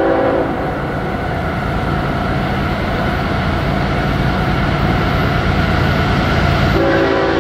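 Approaching CSX freight train's three lead diesel locomotives. The air horn's chord cuts off about half a second in, leaving the low, steady running of the diesel engines, and the horn sounds again near the end.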